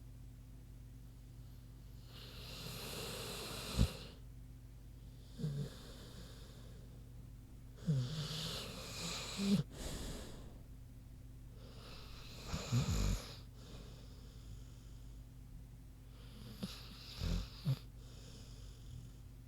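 American bulldog snoring in her sleep: about five long, noisy breaths, roughly one every four seconds, several ending in a short low rattle.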